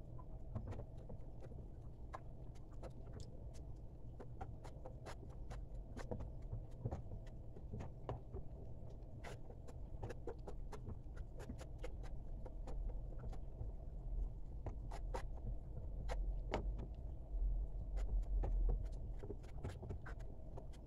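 Wooden spoon stirring grated bar soap dissolving in hot water in a metal pot, with scattered light clicks and scrapes of the spoon against the pot over a steady low rumble.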